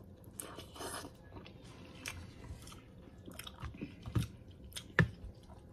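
Close-up chewing of 2x spicy instant noodles, with scattered wet mouth clicks; the sharpest come about four and five seconds in.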